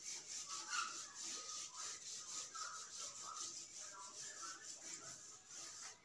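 A bare hand rubbing across a whiteboard in repeated faint strokes, wiping off marker writing.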